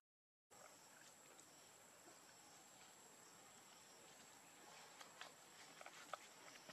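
Near silence: faint outdoor ambience with a thin, steady high tone, after half a second of dead silence at the start. A few faint ticks come near the end.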